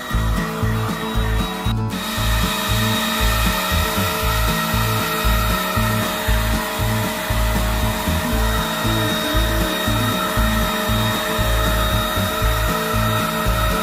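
Handheld electric paint spray gun running steadily while spraying paint, a continuous high whine over uneven low pulsing, with one sharp click about two seconds in.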